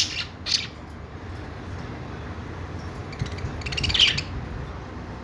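Budgies chirping: a short cluster of rapid chirps at the start, a pause, then another burst of quick chirps about three to four seconds in, over steady low background noise.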